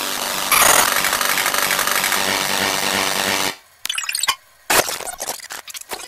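Harsh, heavily distorted digital noise with a droning pitched tone underneath, cutting out suddenly about three and a half seconds in; then a string of short choppy bursts with silent gaps.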